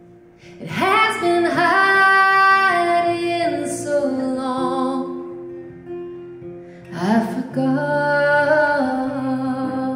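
A woman singing a folk song live to her own acoustic guitar, in two phrases with long held notes: the first begins about a second in, the second about seven seconds in.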